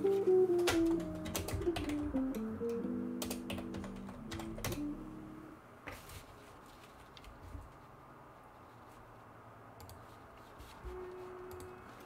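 Background music playing a slow melody that stops about halfway through, with scattered light clicks throughout.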